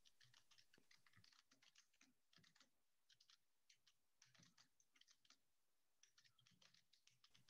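Near silence, with very faint irregular clicks.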